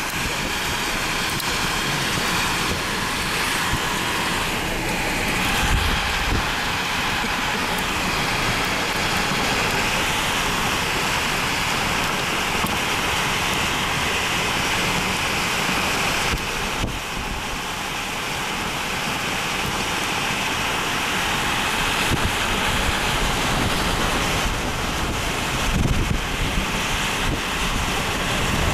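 Strong storm wind rushing over the microphone in a steady loud hiss, with gusts buffeting it in low thumps now and then and a brief lull about seventeen seconds in.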